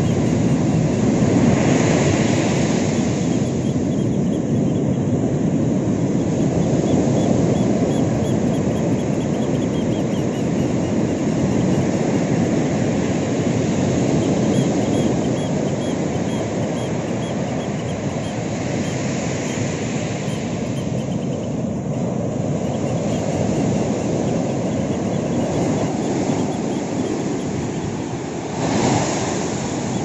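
Ocean surf crashing and washing up a sandy beach: a steady, deep rushing noise that swells louder a few times as bigger waves break.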